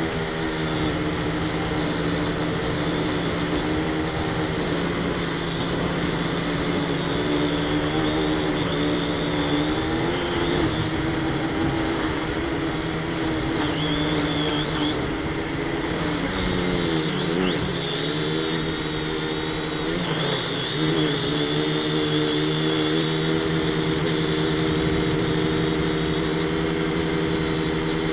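A DFD F183DH toy quadcopter's motors and propellers whining steadily, heard from its own onboard camera. The pitch dips and wavers several times about midway as the throttle changes while it holds and turns in the air.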